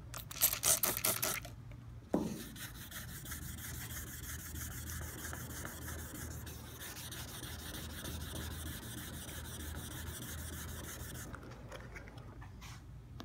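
Quick hand strokes scraping and rubbing on the fresh paint of a truck body panel, working down a paint run: a louder burst of strokes at the start, a single knock about two seconds in, then steady rapid rubbing until near the end.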